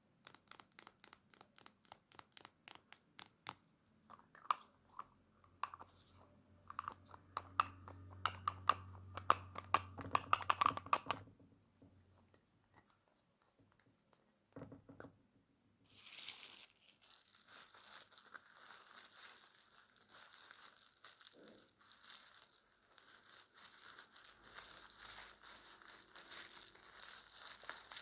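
Close-miked ASMR trigger sounds: a fast, uneven run of small taps and clicks for about the first eleven seconds, then after a short pause a steady crinkling from about sixteen seconds on.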